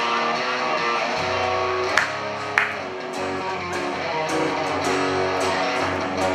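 Live band playing an instrumental passage led by strummed guitar, with regular cymbal strokes and two sharp hits about two seconds in and half a second later.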